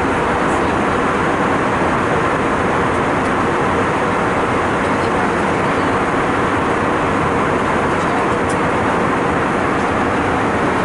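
Steady cabin noise of an airliner in flight: a loud, even rush of engine and airflow noise.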